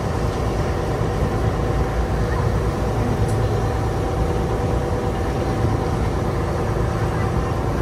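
Boat engine running steadily as the boat cruises across the harbour, a low rumble with a steady tone on top, along with the rush of water against the hull.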